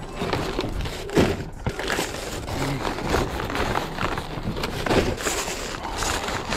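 Plastic shrink-wrap on a case of bottled water crinkling and crackling as it is carried, with footsteps on wooden deck boards and a couple of louder thuds.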